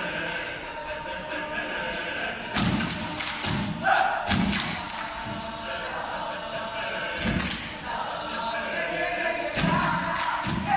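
A mixed a cappella choir singing sustained chords in harmony, cut through by sharp thumps and slaps of body percussion in short clusters: a burst a couple of seconds in, another around the middle and more near the end.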